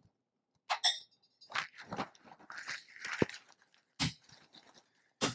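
Cut glassware clinking and knocking as glasses are set down and arranged on a tray, with a ringing clink about a second in and sharp knocks near four and five seconds.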